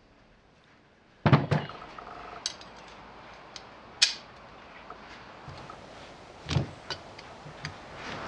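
Metal parts of a Series 1 Land Rover front swivel assembly (the chrome swivel ball and its oil-seal retainer ring) being handled on a workbench: a series of sharp knocks and clinks starting about a second in, the loudest at the start and again past six seconds.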